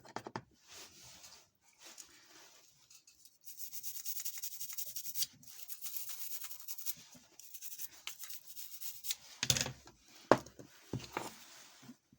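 Small brush scrubbing a phone's circuit board to clean off flux paste after the new charging port has been soldered: rapid scratchy rubbing, strongest through the middle, followed by a few knocks near the end.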